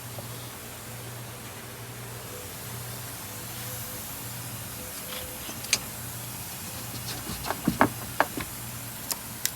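Steady hiss with a faint low hum, then a scattered run of sharp clicks and knocks from about six seconds in, the loudest near eight seconds.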